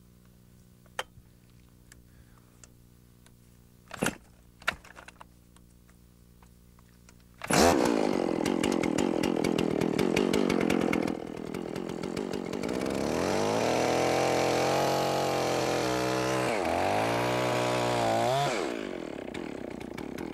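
A few short knocks, then about halfway through a chainsaw suddenly revs hard at full throttle. After a few seconds its pitch drops as the bar tip bores into a tree trunk, a plunge cut to test the tree's soundness. The engine note rises and falls under the load, then eases off near the end.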